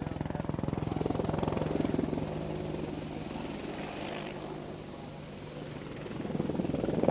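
Helicopter rotor blades chopping steadily. The sound fades a little past the middle and grows louder again near the end.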